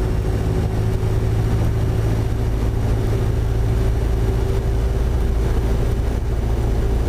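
Cessna 172P's four-cylinder Lycoming engine and propeller droning steadily in the cockpit at approach power.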